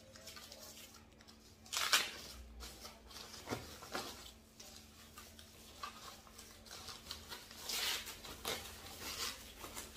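Crinkling and rustling of a plastic protective wrapper being pulled off a small speaker, in irregular crackles, with a sharper crackle about two seconds in and a run of rustles near the end.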